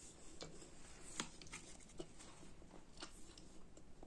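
Faint chewing of a bite of a soft, non-crispy baked roll, with a few small scattered clicks.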